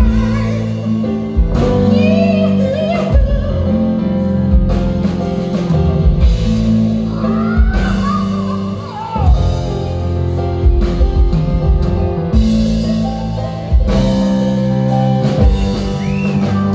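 Live rock band: a male lead vocal sung at a keyboard over bass guitar and drum kit.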